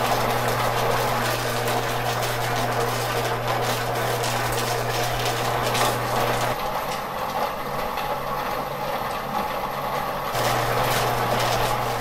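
Double-barrel rotary rock tumblers (Thumler's A-R2 and Lortone 33B) running: a continuous rumbling clatter from the turning barrels over a steady electric motor hum. About six and a half seconds in, the hum drops away and the sound changes, and the hum returns near the end.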